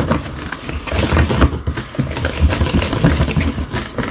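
Wire whisk beating cupcake batter in a plastic mixing bowl: rapid, irregular clicking and scraping of the wires against the bowl.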